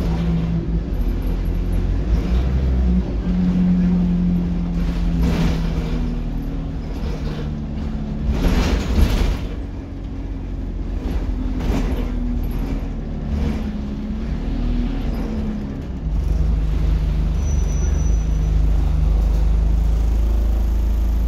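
Cabin sound of an Alexander Dennis Enviro200 single-deck bus under way: the diesel engine and Allison automatic gearbox drone, with a whining tone that shifts in pitch. A louder rushing noise comes about eight seconds in, and the engine grows louder again about sixteen seconds in as the bus pulls harder.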